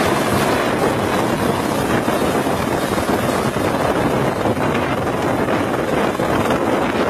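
Light helicopter hovering and lifting just above its pad: a steady rush of rotor and turbine noise, with the rotor downwash buffeting the microphone.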